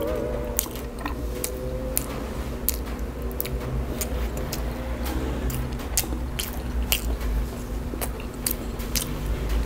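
Close-miked chewing of a mouthful of KFC Zinger fried-chicken burger: wet mouth clicks and smacks, several a second and uneven, with fingers being licked near the end.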